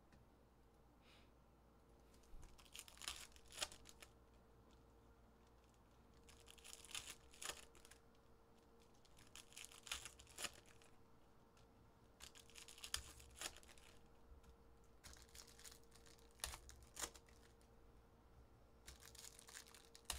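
Foil wrappers of Panini Select trading card packs being torn open and crinkled by hand. The sound comes as quiet bursts of ripping and crinkling with a few sharp clicks, about every three seconds.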